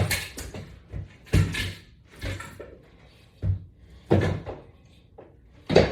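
A series of about six separate thuds and clunks of exercise equipment being handled, a latch bar and push-up elevators being picked up and set down.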